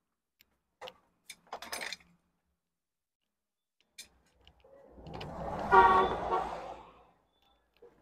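A vehicle horn sounds once, held for about a second and a half around five to six seconds in, over the low rumble of a passing vehicle. A few faint clicks and clatters come before it.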